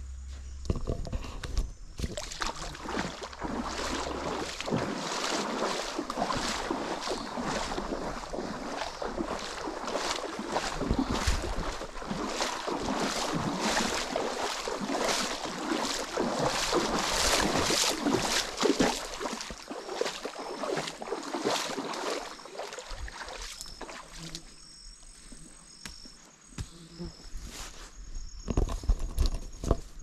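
Feet wading through a shallow stream, the water sloshing and splashing with each step. The splashing eases off about two-thirds of the way through, and a few heavier footsteps come near the end.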